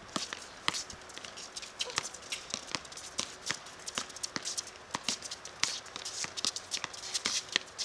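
Players' footsteps and a basketball bouncing on a court: an irregular string of sharp knocks and taps, several a second.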